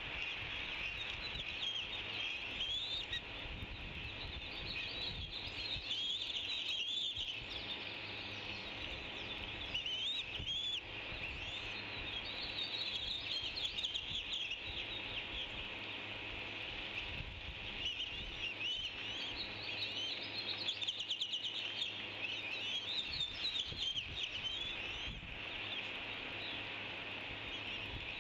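Many high-pitched bird chirps and calls overlapping without a break, over a steady high hiss.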